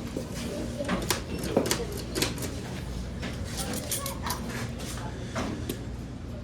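Irregular clicks and light clatter of someone handling a coin-operated vending machine, over a steady low hum.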